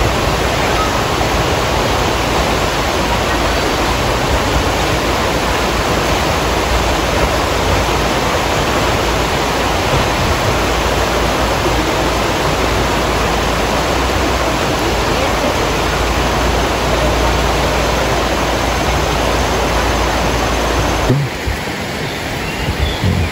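Shallow rocky river rapids rushing steadily. The rush cuts off abruptly about two seconds before the end, leaving quieter surroundings with a couple of low bumps.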